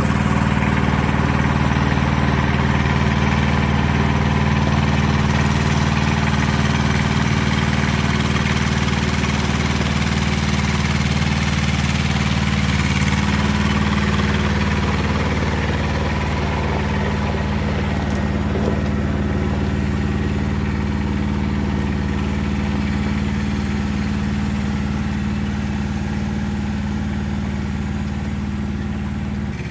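An engine idling steadily, its low hum holding an even pitch and easing off slightly near the end.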